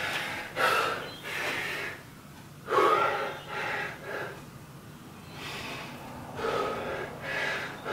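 A man breathing hard, gasping in and out about once a second, catching his breath after a high-intensity exercise interval.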